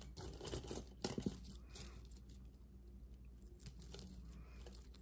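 Faint clicks and rustling of small pieces of costume jewelry being picked through and handled by hand, with a cluster of clicks about a second in.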